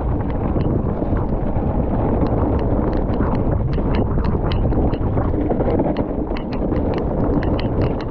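Mountain bike riding a muddy trail: a steady rumble of tyres and wind on the microphone, with frequent, irregular sharp clicks and rattles from the bike.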